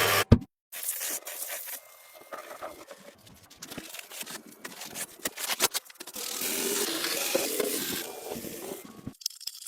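Light scraping and rubbing with scattered clicks and taps, typical of hand work on metal or wooden parts. A sharp click comes right at the start, and a steadier stretch of rubbing runs in the second half.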